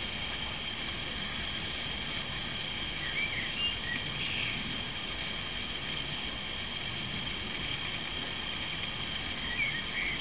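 Garden ambience: a steady hiss of background noise, with a few brief, faint high chirps about three to four seconds in and again near the end.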